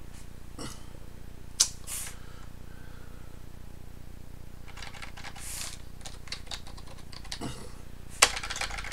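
Computer keyboard being typed on: a few single key clicks, then a quick run of keystrokes in the middle, and one sharp click near the end.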